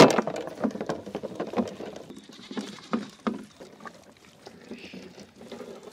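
A goat bleating in short calls. The loudest comes right at the start, followed by several fainter ones over the next few seconds.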